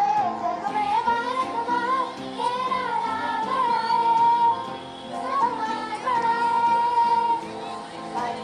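Music: a high voice sings a melody with long held notes over instrumental backing.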